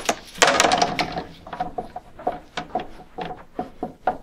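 A large sheet of poster board handled and slid on a desk, then a marker writing on it in short squeaky strokes, several a second.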